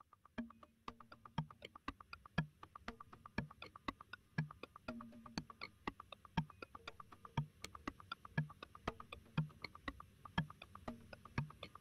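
Quiet, sparse percussive music: a soft low thump about once a second under a rapid run of sharp clicks and ticks.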